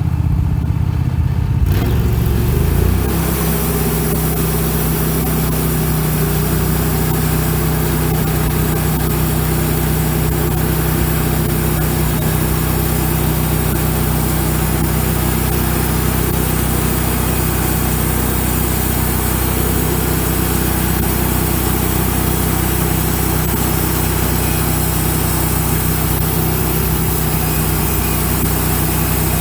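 Wood-Mizer LX150 band sawmill running steadily, its engine hum under the hiss of the band blade sawing through a pine cant. The hiss comes in about two seconds in and then holds steady.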